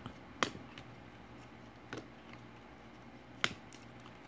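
Trading cards being sorted and set down on a table: sharp light clicks and taps, three louder ones about a second and a half apart, with fainter ones between.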